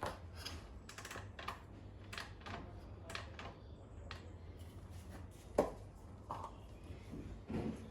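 Irregular light clicks and knocks of hands and tools working on a motorcycle, with one sharper knock about five and a half seconds in; the engine is not running.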